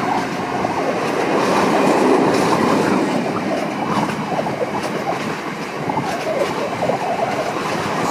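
Loaded freight train of tank wagons rolling past, wheels clattering steadily over the rail joints.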